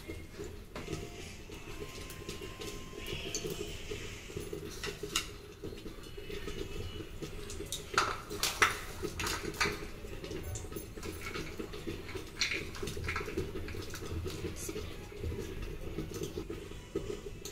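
Ghee heating in a small iron pan on a gas burner, giving scattered small pops and crackles over a steady low hum.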